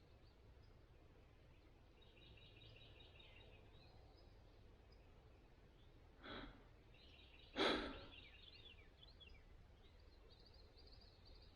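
Faint songbirds trilling off and on, with two short breathy rushes of air about six and eight seconds in, the second louder and fading quickly.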